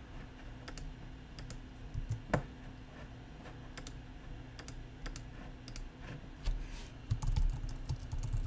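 Computer keyboard and mouse clicks: scattered single clicks at first, then a quicker run of keystrokes with soft low thuds near the end as a word is typed.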